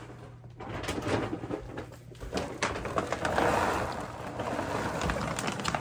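Dry dog kibble poured from its bag into a plastic storage bin: a rattling, rustling rush of pellets that builds about half a second in and is loudest around the middle.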